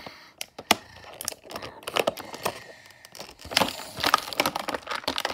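Clear plastic toy-packaging bag crinkling and crackling in irregular bursts as it is handled and shaken.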